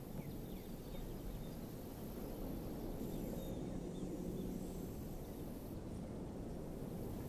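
Steady low outdoor background rumble, with a few faint short bird chirps.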